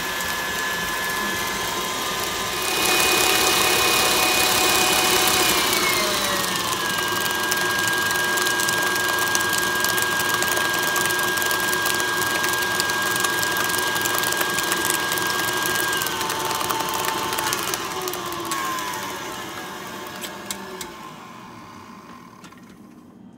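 KitchenAid stand mixer's motor whining steadily as its flat beater mixes cream cheese topping in a steel bowl. The speed steps up about three seconds in and drops back a few seconds later. It slows again past the middle, then winds down and stops near the end.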